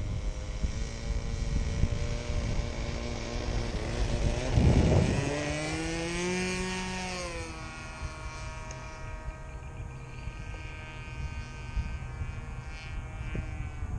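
Evolution 60 two-stroke glow engine on a model airplane running at full throttle for takeoff. It grows louder and its pitch rises then drops as the plane passes close about six to seven seconds in, then it fades as the plane climbs away. Wind buffets the microphone just before the pass.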